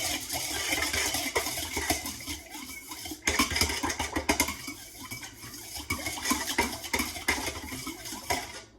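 A whisk beating water with salt and yeast in a mixing bowl: quick, continuous clinking and scraping against the bowl that stops just before the end.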